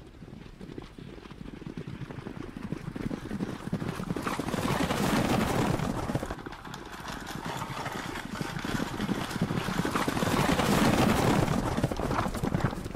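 Horse-drawn covered wagon travelling: a dense, rattling clatter that swells about four seconds in and again about ten seconds in.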